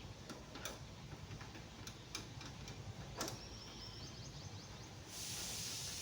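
Light clicks and taps from hand tools working on a scooter's footrest bolt: a few separate clicks, then a quick run of fine ticks, with a steady hiss coming in near the end.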